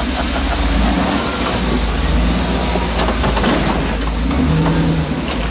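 Engine of a modified rock crawler running at low revs as it creeps over boulders, its pitch rising and falling a little, with a few sharp knocks about halfway through.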